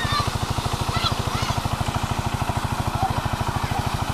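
Single-cylinder STAR diesel engine running steadily under load, driving a tube-well water pump, with an even beat of about ten firing pulses a second. Water gushes from the pump outlet, and children's shouts rise over it.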